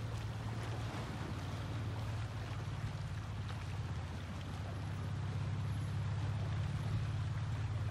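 Steady low rumble of wind on the microphone over the wash of sea water against a seawall.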